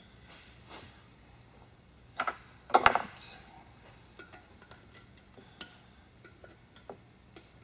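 Small metallic clicks and clinks of lifter retaining clips and tools being handled on the engine, with a louder clatter and a brief metallic ring about two to three seconds in.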